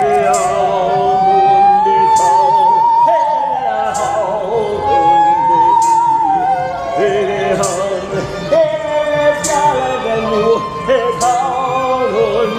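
Operatic singing: a high voice holding long notes with wide vibrato over a lower accompanying line. A short sharp percussive stroke sounds about every two seconds.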